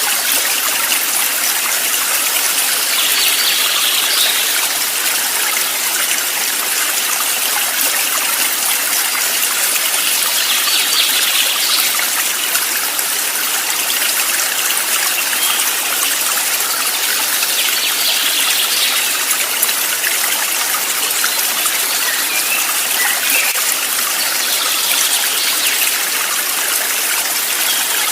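A stream of water flowing and trickling steadily, with a brighter swell of splashing about every seven seconds.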